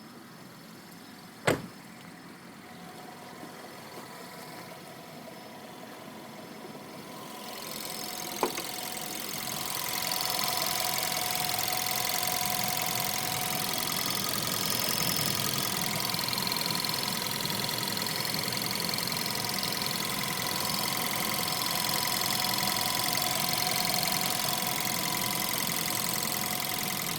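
Skoda Yeti engine running, with a steady whine made of several high tones; two sharp clicks, about a second and a half and eight seconds in, the first the loudest moment, and the sound grows louder after the second. The whine is the abnormal water-pump noise the owner is recording; it came back after the pump had been replaced.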